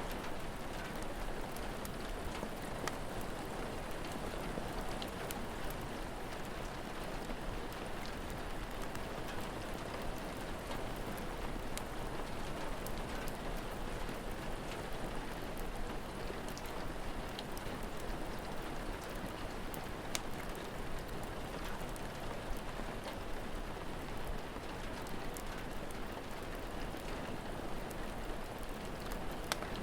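Steady rain, even and unbroken, with scattered sharp clicks and pops from a crackling wood fire.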